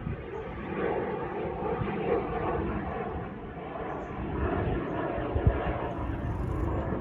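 Fixed-wing aircraft engine droning steadily as a plane flies past.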